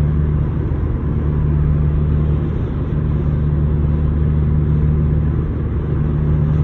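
Steady low drone of a car cruising at highway speed, heard inside the cabin: engine and tyre noise with a constant hum.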